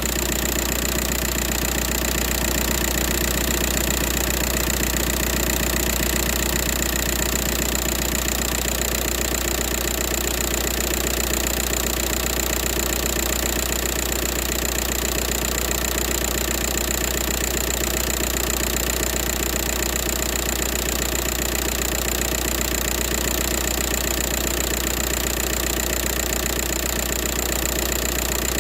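2004 Volkswagen Jetta TDI's 1.9-litre four-cylinder turbodiesel idling steadily.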